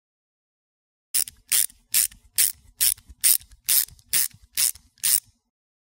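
Ratchet wrench clicking ten times in an even rhythm, about two clicks a second, starting about a second in.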